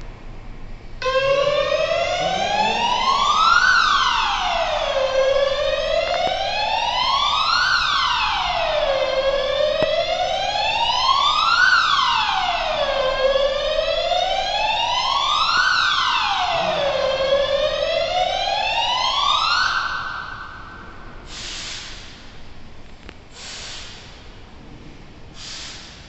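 Fire alarm siren set off by a smoke detector test, wailing slowly up in pitch and quickly back down about every four seconds, five times. It then holds one high tone briefly and cuts off about twenty seconds in. Three short bursts of noise follow, about two seconds apart.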